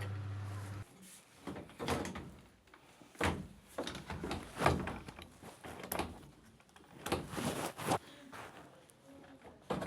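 A steady electric hum cuts off suddenly about a second in. Irregular knocks and clunks follow, as of dryer parts and panels being handled during repair work.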